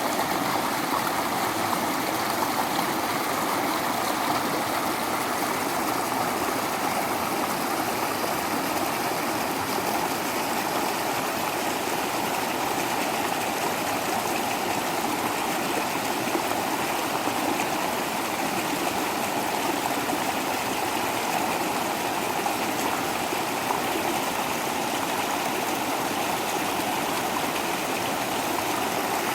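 Small waterfall: water falling and rushing over rocks in a steady, even splashing rush.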